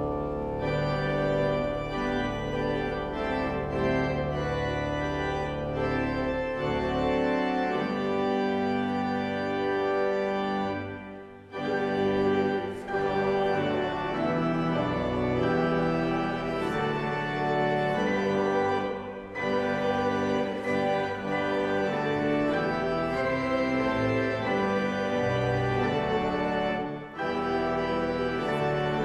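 Church organ and grand piano playing together in held chords, with three short breaks between phrases.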